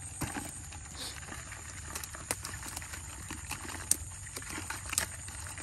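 Scattered sharp taps and light rattling as fish are shaken out of a woven bamboo fish trap into a plastic bucket, with a steady high hiss underneath.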